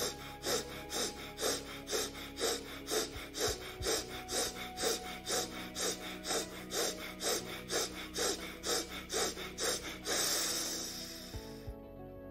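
Rapid, forceful breaths pumped through one nostril while the other is pressed shut, about two and a half a second. About ten seconds in they stop and give way to one long breath that fades out. Soft background music plays underneath.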